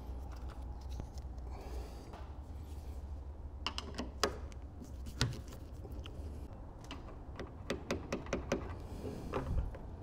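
Small sharp clicks and taps of plastic and metal door-handle parts being handled and fitted at the edge of a car door: a few about four seconds in, one near five, a quick run of about six near eight seconds, and more near the end, over a low steady hum.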